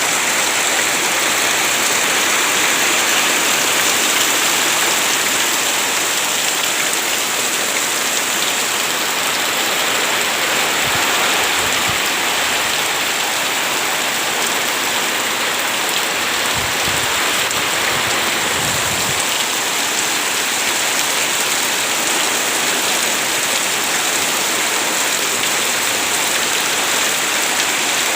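Heavy rain falling steadily, a dense even hiss of drops hitting surfaces. A few faint low thuds come in around the middle.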